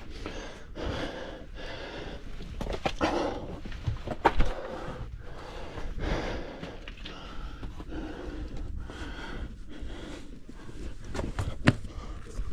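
A hiker breathing hard in rhythmic puffs while walking uphill, with footsteps on the rocky trail and a couple of sharp knocks, about four seconds in and near the end.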